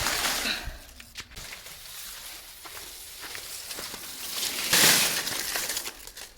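Dry vegetation rustling and crunching as it is cleared by hand, with a loud swish at the start and another about five seconds in, and faint crackling between them.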